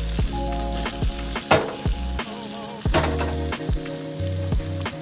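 Instrumental background music with a steady beat and changing bass notes, over a steady sizzle of food frying in a pan.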